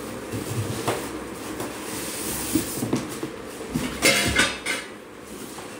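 Polystyrene foam packing and cardboard carton scraping and rustling as an oven toaster grill in its foam end caps is lifted out of the box, with a few knocks and the loudest scrape about four seconds in.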